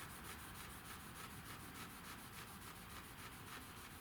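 Cloth rubbing back and forth on car paint, working in an abrasive scratch-repair compound. Faint, quick, even strokes.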